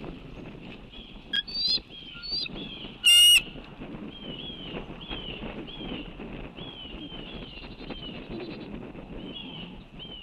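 Bird calls: scattered high notes, then one loud, harsh call just after three seconds in, followed by a steady run of short, arching high notes at about two a second.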